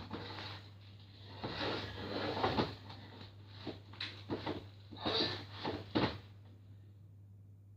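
An irregular run of knocks, bumps and scraping from things being handled and moved, with a sharp knock at the start; it stops about six seconds in, leaving a steady low hum.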